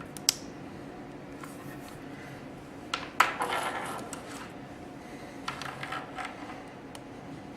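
Small sharp clicks and light scraping of a crimped metal terminal and a plastic HEI distributor connector being handled as the terminal is pushed back into the connector. There is one click near the start, two close together about three seconds in (the second is the loudest), and brief rubbing after each.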